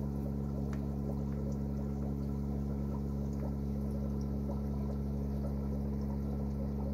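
Aquarium pump running: a steady electrical hum with water bubbling and trickling over it.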